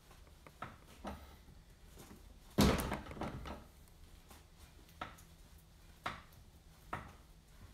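Hand tools clicking and knocking against parts in a car's engine bay: a few sharp clicks about a second apart, with one louder clunk that rings briefly about two and a half seconds in.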